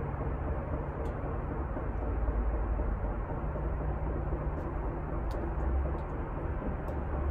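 Steady low rumble and hiss of background noise with a constant low hum and a few faint ticks.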